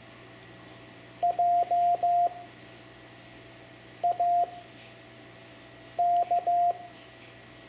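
Morse code (CW) keyed as a steady mid-pitched beep, spelling the word "Jake": J (dit dah dah dah), a pause, A (dit dah), a pause, K (dah dit dah), with the single dit of E starting at the very end.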